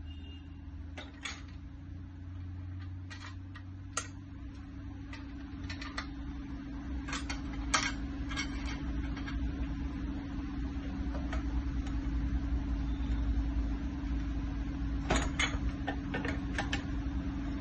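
Multi-station home gym's weight stack and cables clicking and clinking with the repetitions, in scattered sharp clicks that come in clusters, over a steady electrical hum.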